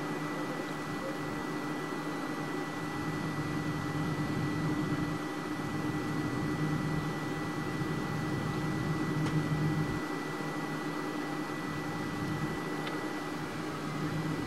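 Cabin noise inside a McDonnell Douglas MD-11 taxiing, its wing-mounted turbofan engine at low power: a steady hum under a thin, steady high whine.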